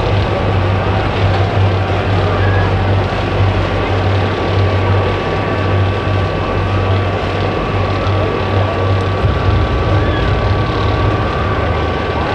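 A motor running steadily: a loud low drone with several constant higher tones over it.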